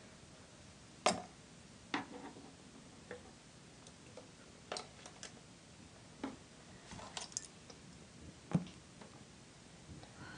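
Scattered light clicks and taps, about six in all, as a metal tablespoon and plastic bottles are handled while dish soap is measured out and spooned into a plastic water bottle.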